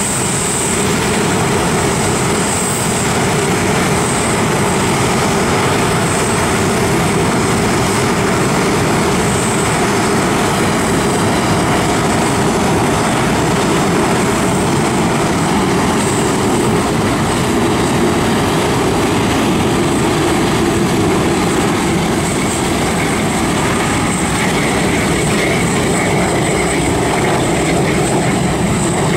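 Boeing 747-8F's four GEnx jet engines running steadily at taxi power as the freighter turns on an icy, snow-covered apron, with a steady high whine over the engine noise.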